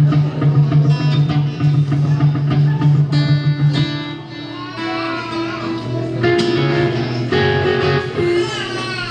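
Guitar played between songs: a low chord held for about four seconds, then single picked notes stepping upward.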